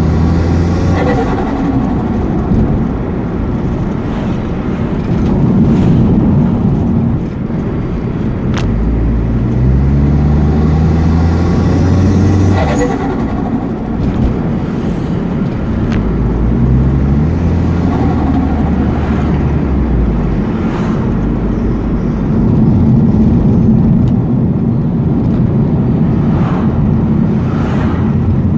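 Mitsubishi Airtrek's turbocharged engine pulling up through the revs several times. Each pull is followed by a quick drop, and short sharp turbo flutter bursts come as the throttle is lifted.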